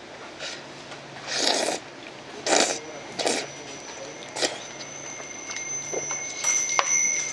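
Slurping of hot spicy instant noodles from a cup: about three loud slurps between one and three and a half seconds in, then quieter chewing and small mouth sounds. A faint steady high whine sets in about three seconds in.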